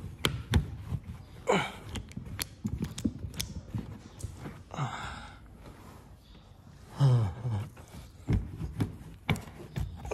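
Scattered clicks, taps and light scraping as a screwdriver probes the seat crevice of a fabric sofa, with a few brief wordless vocal sounds, one falling in pitch about seven seconds in.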